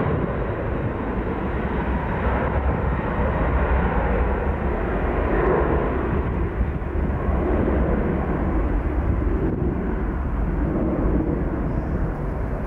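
Boeing 737-800's twin CFM56 jet engines at takeoff power as the airliner accelerates down the runway: a steady rushing jet noise over a deep rumble.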